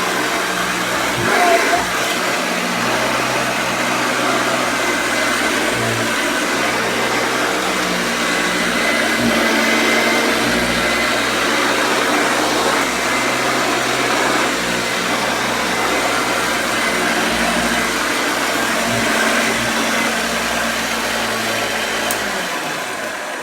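A 1960s Hoover Junior 1334A upright vacuum cleaner running steadily with a steady motor hum, a sign that its motor is in good order; near the end it is switched off and begins to wind down.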